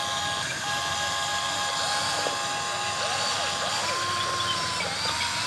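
Small electric motors of a radio-controlled model excavator whining steadily, the whine stepping up in pitch about four seconds in and dipping briefly near the end.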